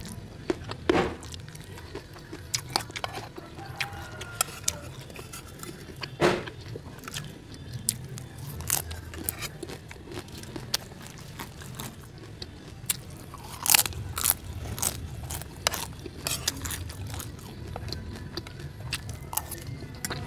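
A person chewing and crunching a mouthful of fried rice, crackers and raw leunca berries close to the microphone. Sharp crunches come about a second in, near six seconds, and loudest near fourteen seconds.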